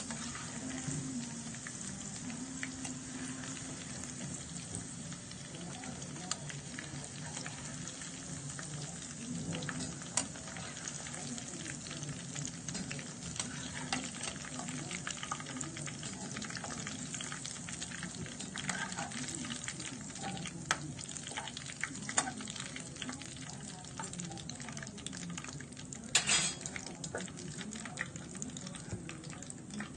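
Food frying in hot oil: a steady sizzle with crackles and the clicks of a utensil stirring in the pan, and one louder scrape near the end.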